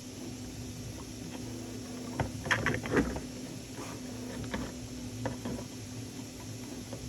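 Small 3D-printed plastic parts being handled and fitted together: a quick cluster of clicks and taps about two to three seconds in, then a few single clicks, over a steady low hum.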